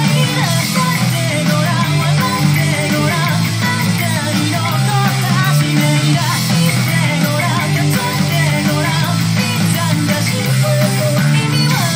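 Loud heavy rock music led by a busy electric bass line, with guitar.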